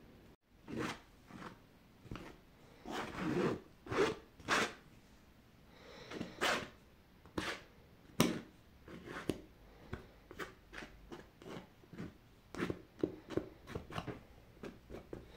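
Palette knife scraping and spreading texture paste on canvas: a string of short, uneven scrapes.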